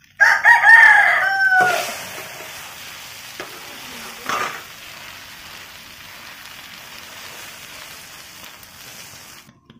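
A rooster crows once, loud, for about a second and a half near the start, over the steady sizzle of an egg-and-potato cake frying in oil in a pan. Two short scrapes of the metal spatula against the pan come a few seconds in.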